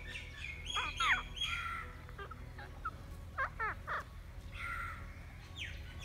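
Rose-ringed parakeets calling: clusters of shrill screeches that fall in pitch, about a second in and again in the middle, with harsher rasping calls between them.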